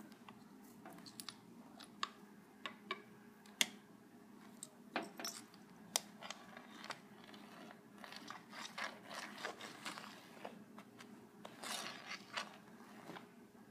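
Faint scattered clicks and scratchy rustles of a cat pawing at a rug from under a cloth, its claws catching on the pile. The rustling grows busier in the second half, over a faint steady hum.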